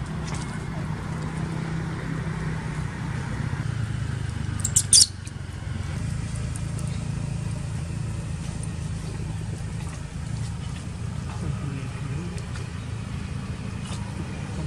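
Steady low mechanical hum, with one brief sharp high-pitched burst a little under five seconds in.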